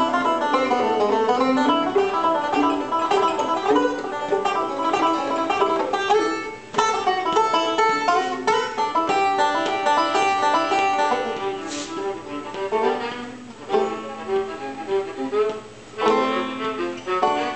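Resonator banjo and fiddle playing a jazz tune together, the banjo picked while the fiddle is bowed.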